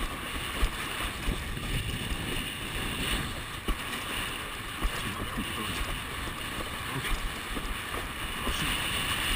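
Windsurf board running across choppy water: wind rushing over the microphone and water hissing past the board, broken by irregular short thuds.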